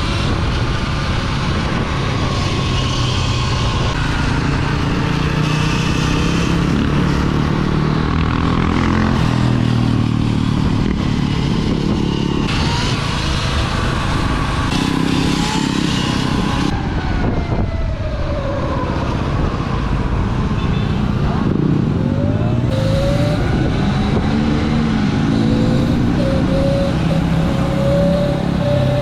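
Dirt bikes riding in a group, their motors rising and falling in pitch over a steady, loud rush of noise. The clearest rising whine comes near the end.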